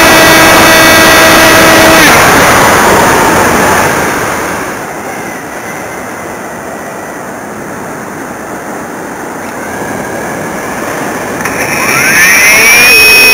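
Electric RC glider's brushless outrunner motor (TGY AerodriveXp 35-48, 1100Kv, on 6S) spinning a 9x6 propeller with a steady whine, cut off about two seconds in. Then only the rush of air over the airframe, which quietens as the model glides, until near the end the motor spools up again with a rising whine that settles on a steady high tone.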